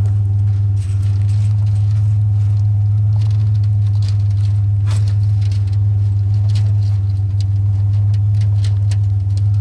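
Truck engine idling steadily with a low, even hum. Light irregular clicks and taps are scattered over it.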